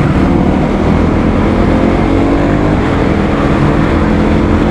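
Motorcycle engine running steadily while under way, its pitch shifting a little, over a steady rush of wind noise.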